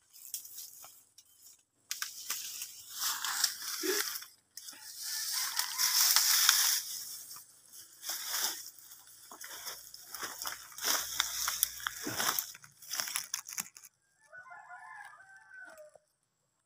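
Dry leaves, fronds and brush rustling and crackling close to the microphone in uneven bursts as someone pushes through thick undergrowth. A short, faint call comes near the end.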